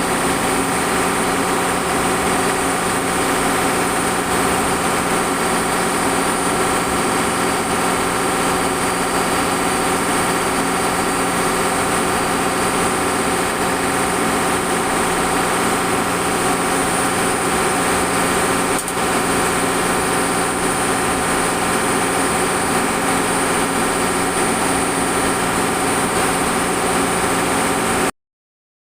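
Machinery aboard a longline fishing boat running steadily: a loud, constant drone with a high whine over it. The sound cuts out abruptly for about a second near the end.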